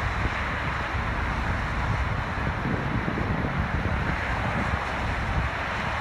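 Wind blowing on the microphone: a low, fluttering rumble over a steady hiss.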